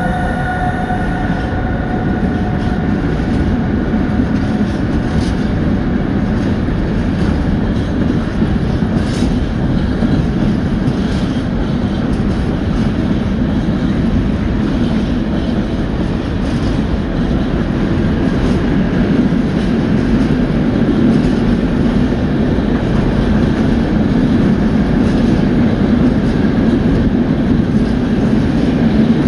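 Freight train of empty coal wagons rolling past, a steady rumble of wheels on rail with occasional faint clicks over the rail joints.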